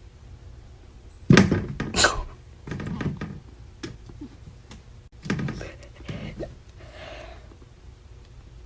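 A series of thumps and knocks in a small room: two loud ones about a second and two seconds in, and more around three and five to six seconds in.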